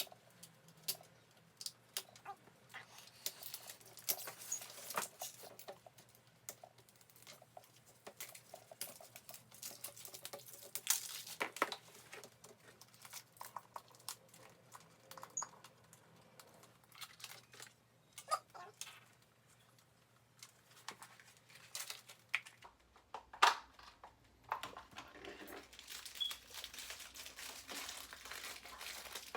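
Crinkling plastic wrappers and small plastic clicks and rattles as the layers and accessory bags of an LOL Surprise doll ball are unwrapped and handled, in many short irregular bursts.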